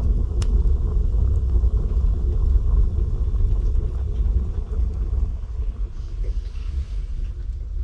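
Fire burning in a wood stove with a steady low rumble of the draft, and a single sharp crackle about half a second in.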